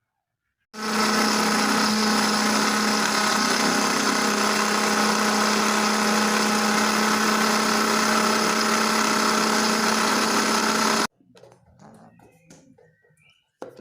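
Electric blender running steadily, blending pieces of fruit and vegetable into a smoothie; it switches on under a second in and cuts off suddenly near the end.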